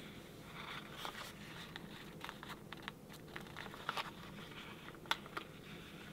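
Paper sticker sheet crinkling as it is flexed in the hands while a sticker is picked off its backing: faint crackling with scattered small sharp clicks, the sharpest about four and five seconds in.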